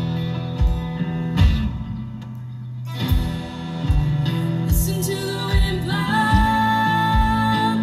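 Live band playing: electric guitars, bass and a drum kit with a steady beat, dropping quieter for a moment near the middle. About five seconds in, a woman's voice comes in singing long held notes.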